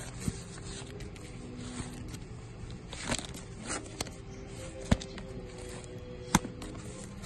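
Vinyl LP records in clear plastic outer sleeves being flipped through in a bin: plastic rustling and scraping, with several sharp clacks as records fall against each other, the loudest two near the end. Music plays quietly underneath.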